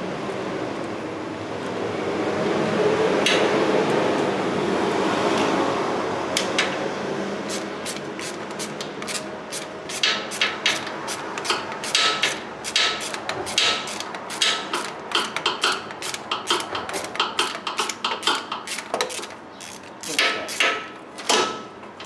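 A broad rushing noise swells and fades over the first few seconds. Then a ratchet wrench on a long extension clicks in quick bursts as it backs out a starter mounting bolt that had been left loose.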